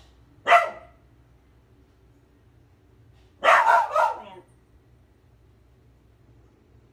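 Dog barking: one bark about half a second in, then three quick barks about three and a half seconds in.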